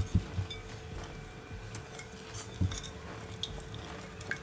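A wooden spoon stirring a thin sauce in a glass bowl, with a few soft knocks of the spoon against the glass.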